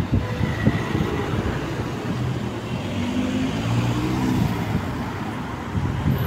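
Car engine running on a street, its engine note swelling and rising a little about three seconds in, with wind buffeting the microphone.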